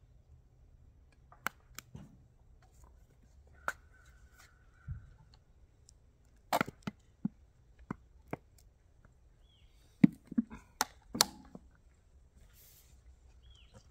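Scattered sharp clicks and knocks of plastic condiment squeeze bottles being handled and set down on a table while a wrap is dressed; the loudest come about ten and eleven seconds in.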